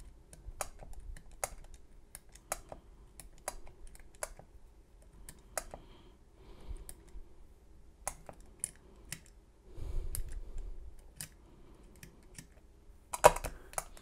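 Number wheels of a four-wheel combination lock box clicking as they are turned one digit at a time while every code is tried in turn. The clicks come irregularly, a few a second, with a louder clatter of clicks near the end.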